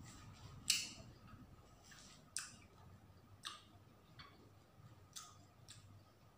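Watermelon being cut and broken into pieces: a series of about six crisp, sharp cracks from the rind and flesh, the first about a second in the loudest.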